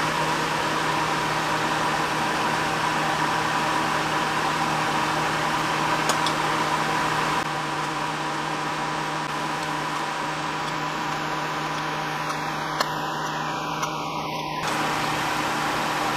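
Steady whirring hiss with a low hum, like a running fan, with a few faint clicks.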